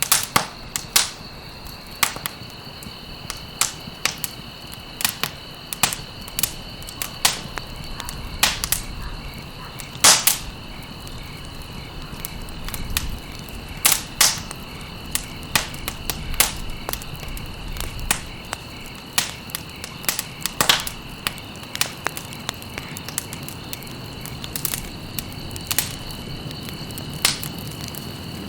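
Wood fire crackling, with irregular sharp pops and snaps, several a second at times, over a steady low rush of burning. A steady high-pitched tone runs underneath throughout.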